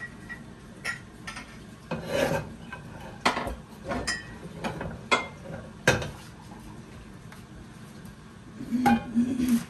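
Irregular scraping, rasping and crunching of food being layered and spread in a casserole dish, with clicks of a utensil against the dish. Near the end come two short, low hummed sounds.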